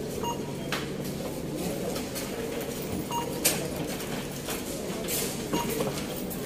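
Indoor shop ambience: a steady background din with scattered sharp clicks and three short high blips.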